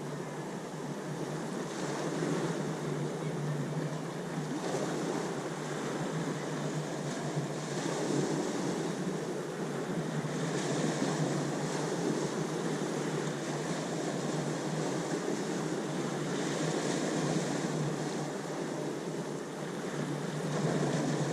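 Ocean surf: a continuous rush of breaking and washing waves that swells and eases every few seconds.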